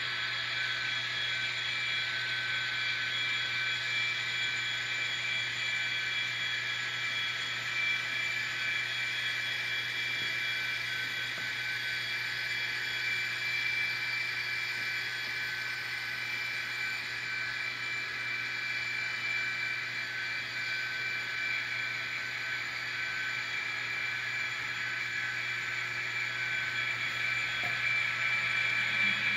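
Several N scale diesel locomotives' ESU sound decoders playing steady sampled diesel engine sound through their tiny onboard speakers. Most of the sound sits high, with little low end.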